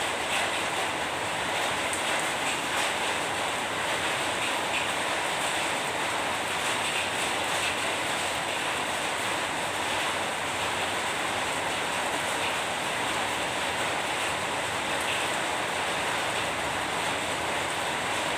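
Steady rain: an even, unbroken hiss with a few faint scattered drop ticks.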